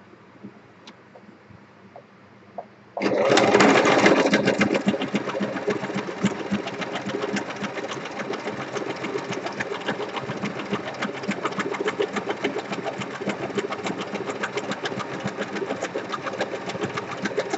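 Domestic electric sewing machine stitching, plausibly a zigzag stitch, after a few faint handling clicks; it starts suddenly about three seconds in, loudest as it gets going, then runs on in a fast, even needle rhythm.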